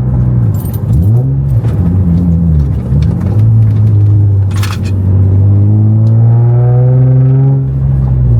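Nissan 350Z's VQ35DE V6 through a Henko Y-pipe exhaust, driving. Early on the revs swing down and up twice, then the note holds and climbs slowly in a long pull, with a short click about halfway. The exhaust runs deep with no hiss, its Y-pipe leak sealed by an extra-thick gasket.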